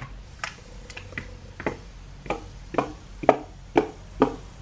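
Collapsible solar LED camping lantern being pulled open: its pleated plastic shade gives about ten sharp clicks, roughly two a second, growing louder as it extends.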